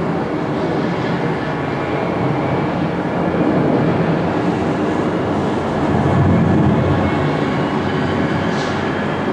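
Jet airliner engines at the airport, a steady rumble with a faint high turbine whine that rises slightly near the end.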